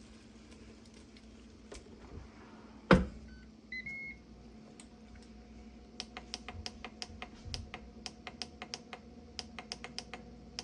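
A sharp thump about three seconds in, then a few short electronic beeps and a quick, even run of clicks for about four seconds: a kitchen appliance's control buttons being pressed to set the cooking time.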